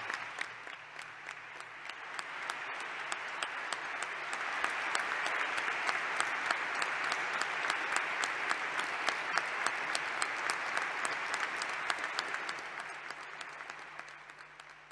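An audience applauding at the close of a speech: many hands clapping, swelling over the first few seconds, holding steady, then dying away near the end.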